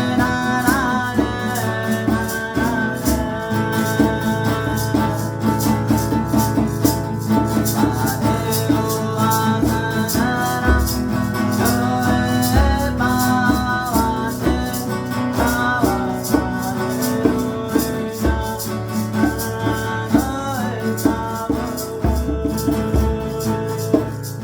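Music: a hand rattle shaken in a steady, quick rhythm over a plucked string instrument and a melody line.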